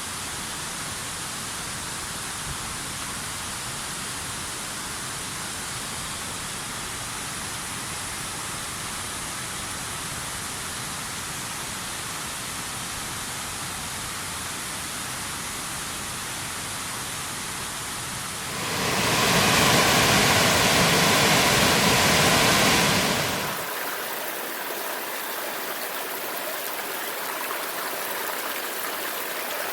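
Steady rushing water of a waterfall. About two-thirds of the way in it abruptly gets louder and fuller for about five seconds. It then changes to a lighter, thinner stream sound with less low rumble.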